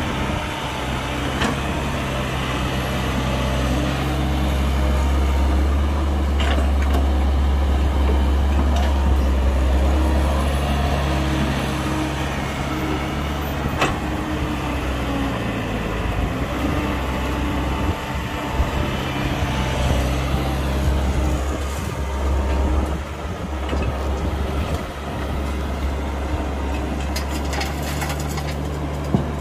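Heavy diesel engine of a construction machine running, its note rising and falling with the load, with a few sharp metallic knocks.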